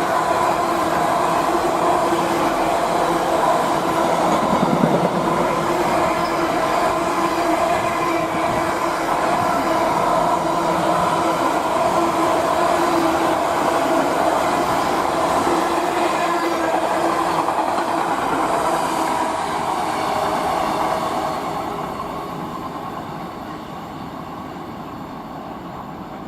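Freight train passing through at speed: a loud, steady rolling rumble of wagon wheels on the rails, with clattering and a few steady ringing tones. It fades away over the last few seconds as the train clears.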